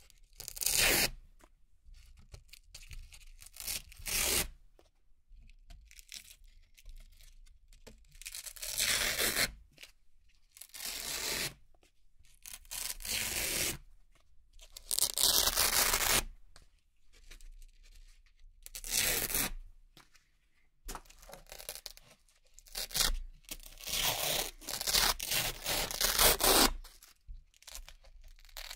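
Hook-and-loop (Velcro) circles being peeled off a Velcro-covered board one at a time. About a dozen crisp, crunchy ripping tears, each lasting about a second, are separated by quiet gaps.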